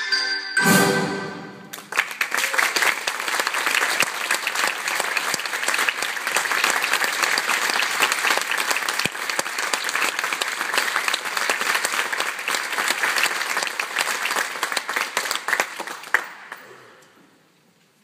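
A brass band with mallet percussion ends on a final chord, then an audience applauds, the clapping dying away near the end.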